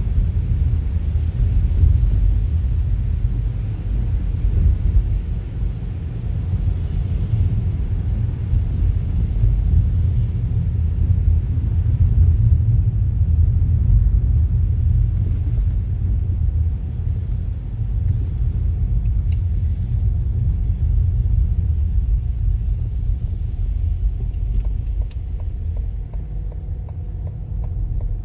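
Steady low rumble of a car being driven, road and engine noise, with a few faint ticks in the second half.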